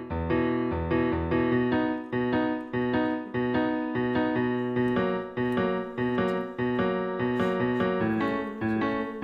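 Piano playing a steady rhythm of repeated chords, with no voice over it.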